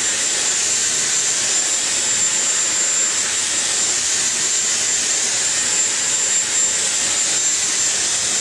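Dyson hair dryer blowing steadily while rough-drying hair, its airflow rushing with a steady high-pitched whine from the motor.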